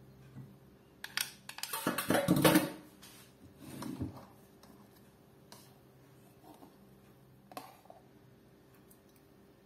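Spatula knocking and scraping against a blender jar and a stainless steel mixing bowl as thick blended paste is scraped out, a burst of clatter about a second in, then a few single taps.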